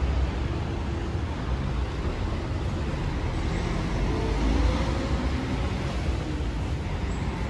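City street traffic: a steady low rumble of cars, swelling slightly midway as a vehicle passes.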